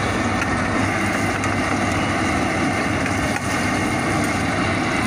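Tomato vadas sizzling as they deep-fry in a large iron kadhai of hot oil, over a steady low rumble.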